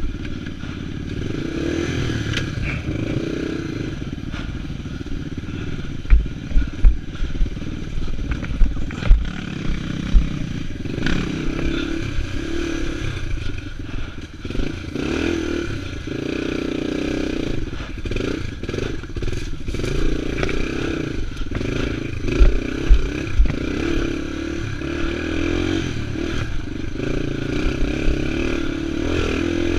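Yamaha TT-R230 dirt bike's single-cylinder four-stroke engine running on a rough trail, its revs rising and falling with the throttle. A few sharp thumps and clatters come as the bike jolts over rocks and roots, about six to nine seconds in and again past twenty seconds.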